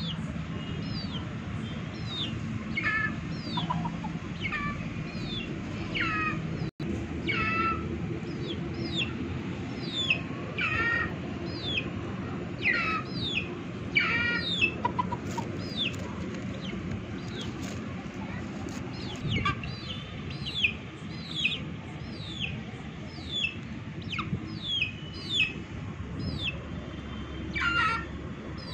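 Chicks peeping: a steady run of short, high-pitched, falling peeps, about one to two a second.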